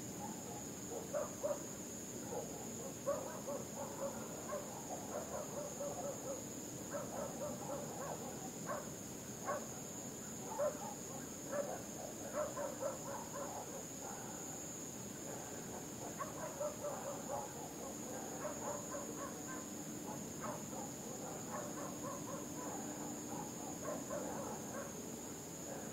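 Night ambience of calling animals: many short, irregular chirps and calls over a steady high-pitched insect hum.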